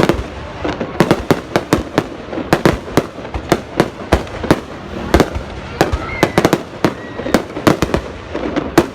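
Fireworks going off: a dense, irregular run of sharp bangs and pops, several a second, over a steady rumble and crackle of more distant bursts.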